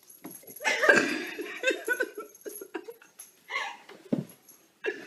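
A person laughing in quick repeated bursts, loudest about a second in.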